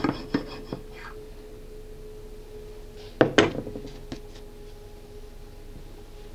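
Serrated knife sawing through sponge cake, a few quick scratchy strokes that stop about a second in. After that only a faint steady hum, broken about three seconds in by a pair of sharp knocks.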